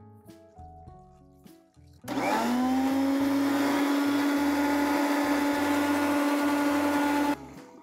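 Kitchen mixer grinder (mixie) grinding cashews with water into a paste. It starts about two seconds in with a quickly rising whine, runs steadily for about five seconds, then cuts off suddenly.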